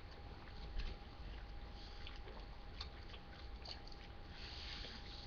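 Faint wet chewing and slurping of orange segments, with scattered small mouth clicks, and a breath drawn in through the nose a little over four seconds in.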